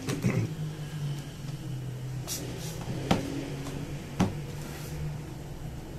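A small cardboard retail box being handled and opened: a few sharp clicks and knocks and a short rustle of the packaging, over a steady low hum.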